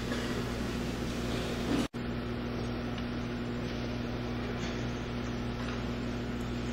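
Steady electrical hum and room noise with a constant low tone. The sound cuts out for an instant about two seconds in.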